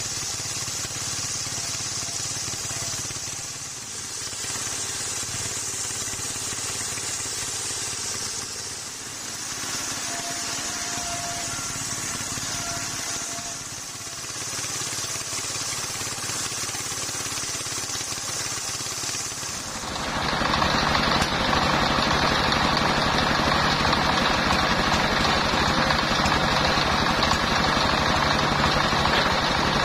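Homemade circular sawmill, belt-driven by a single-cylinder diesel engine, ripping a coconut-palm log lengthwise with a steady hissing cut that briefly eases three times. About twenty seconds in, the cut ends and the diesel engine and free-spinning blade run on louder and steadier, heard close up.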